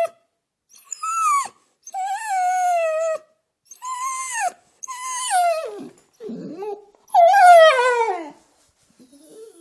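Dog whimpering: a string of about six high, pitched whines, several dropping sharply in pitch at the end, the loudest and longest falling one coming a little past the middle, followed by a faint low whimper.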